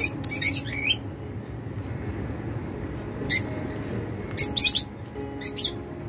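Cockatiels giving short, high chirps in a few quick bursts: a cluster at the start, one around the middle, and a rapid run of three or four calls a little later.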